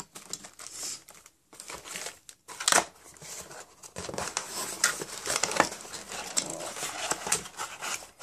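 Packaging being handled while a keyboard box is unpacked: irregular crinkling and rustling of paper and plastic, with a sharp crackle about three seconds in and denser rustling over the second half.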